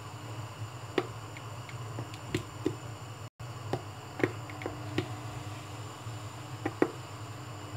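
Palm oil being squeezed from a plastic bottle into a cooking pot: scattered sharp clicks and crackles, roughly one a second, over a steady low hum.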